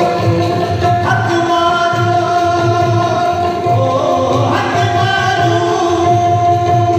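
Sindhi Sufi folk song: a harmonium holds sustained notes over a steady dholak drum beat while a male voice sings.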